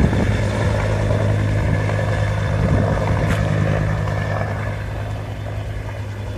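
Firefighting helicopter with a water bucket slung beneath it, flying past as a steady drone of rotor and engine that fades in the last couple of seconds as it moves away.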